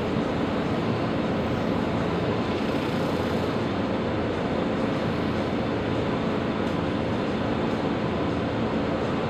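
Mercedes-Benz Citaro G C2 articulated city bus idling steadily while standing at a stop.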